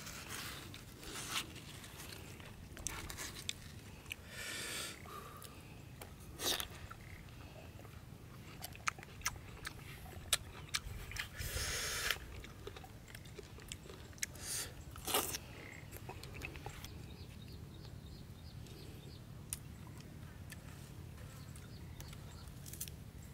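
Close-up eating: a spoon scraping into watermelon flesh, then chewing and crunching in scattered bursts with sharp clicks, over a steady low hum.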